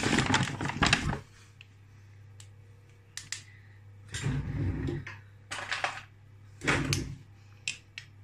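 A paper carrier bag being rummaged through, with crinkling rustling for about a second. Then come scattered light clicks and clinks as a small glass vanilla extract bottle and a teaspoon are handled.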